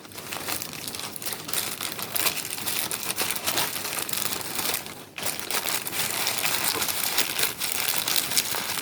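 Takeout food wrapping crinkling and rustling as it is handled, with a brief pause about five seconds in.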